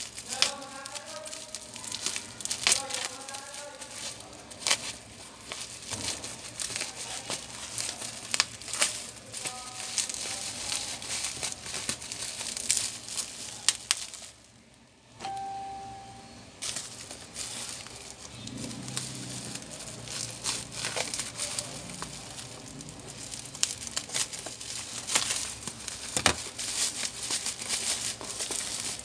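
Bubble wrap and plastic packaging crinkling and crackling as a parcel is unwrapped and cut open with scissors, with many sharp crackles, a short lull about halfway through.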